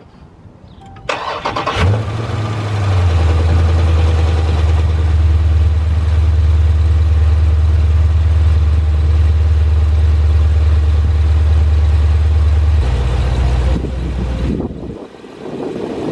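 Dodge Challenger Scat Pack's 392 HEMI V8 started for the first time on fresh oil. The starter cranks for about a second, the engine catches with a quick rev flare, then settles into a steady idle. It shuts off near the end.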